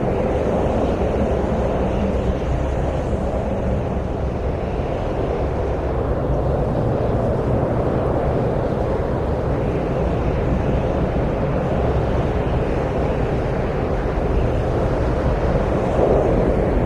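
Steady desert wind noise: a low rushing sound with no distinct events, swelling gently now and then.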